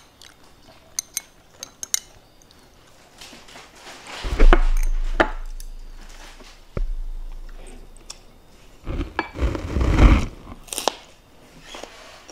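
Close-up eating sounds: chewing and chopsticks clicking against a rice bowl. There is a loud knock about four seconds in, and a louder clatter about nine to ten seconds in as dishes and food on the table are handled.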